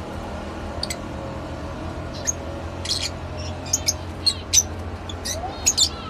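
Lovebirds chirping: a scatter of short, sharp, high chirps, a few at first and coming faster in the second half, over a steady low hum.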